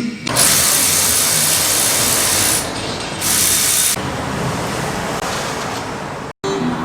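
Loud hiss of a pressurized jet, such as is used to blow or spray-clean engine parts. It comes as two strong blasts over the first four seconds, then a softer steady hiss that cuts off suddenly near the end.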